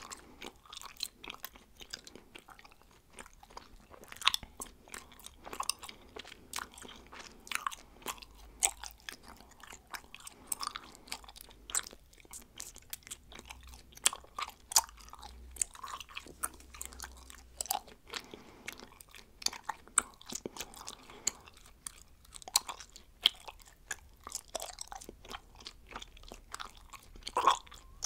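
A woman chewing bubblegum: irregular sharp clicks and smacks of the gum, several a second, with a louder smack near the end.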